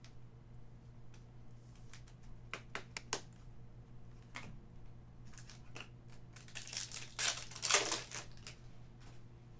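Trading cards and plastic card holders being handled and set down in a series of light clicks and taps, then, about six and a half seconds in, a second and a half of crinkling as a foil card-pack wrapper is handled and torn.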